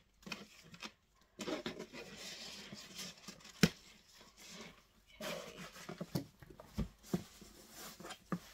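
Gift box and its paper packaging being handled and opened: paper rustling, with a sharp knock a little over three and a half seconds in and a duller knock later.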